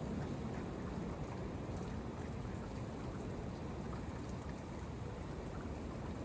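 Heavy rain falling steadily in a gusty windstorm: an even, low rush with faint scattered drop ticks above it.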